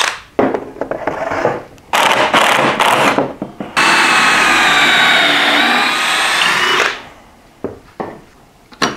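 DeWalt cordless drill/driver running in several short bursts, then for about three seconds, its motor pitch sagging under load as it drives screws into wooden blocks. A few sharp clicks near the end.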